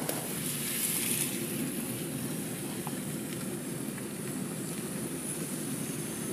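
Steady tyre and engine noise heard inside a moving car's cabin.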